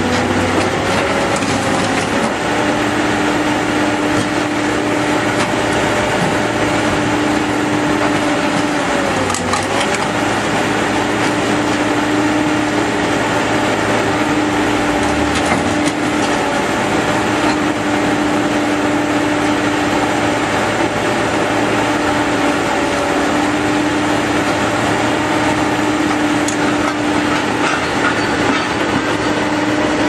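Tracked excavator with a hydraulic scrap shear working scrap car metal. Its diesel engine and hydraulics run steadily with a whine that dips in pitch briefly about nine seconds in, over the clank and crunch of scrap metal being handled.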